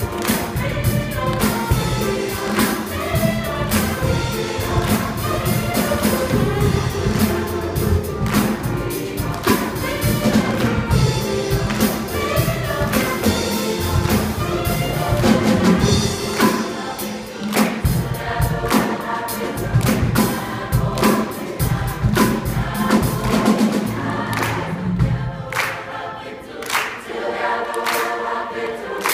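Large combined choir singing an upbeat song with a band of drum kit, congas and upright bass keeping a steady beat, the singers clapping along. For the last few seconds the bass and drums drop away, leaving mostly voices.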